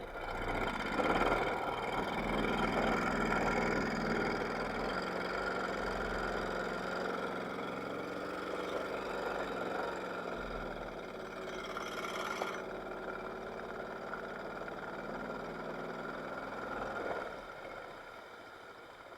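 Small boat motor running steadily, coming up about a second in and dying away near the end.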